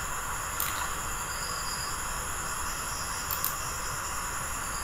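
Steady hiss of the recording's background noise, with a faint high steady whine and a couple of faint clicks.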